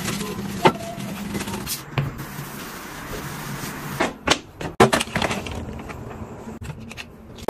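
A trigger spray bottle spritzing foam cleaner in short sprays, then a few sharp knocks a little past halfway.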